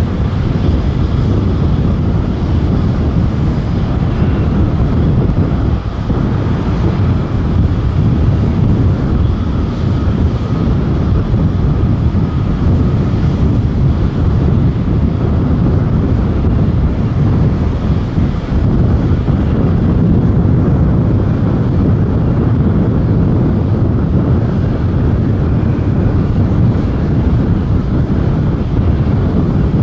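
Distant Boeing 737-800 jet engines on approach: a steady low rumble with no breaks.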